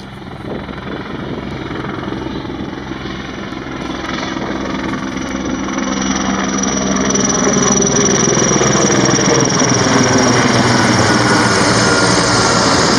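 Sikorsky S-64 Skycrane (Air-Crane) firefighting helicopter approaching and passing overhead: the rotor beat and a steady high turbine whine grow louder and louder, loudest in the second half as it comes over.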